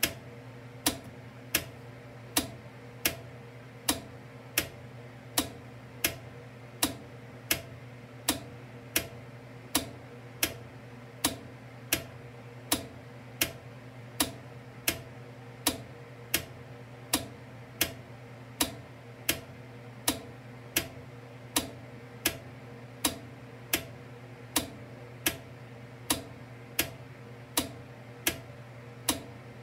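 GRS K-DC railroad crossing flasher relay clicking steadily, one sharp click about every three quarters of a second, each click switching the flash from one incandescent crossing lamp to the other. A steady low hum runs underneath.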